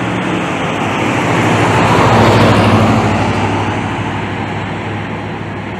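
A road vehicle passing by: tyre and engine noise swells to a peak about two seconds in and then fades. A steady low engine hum runs underneath.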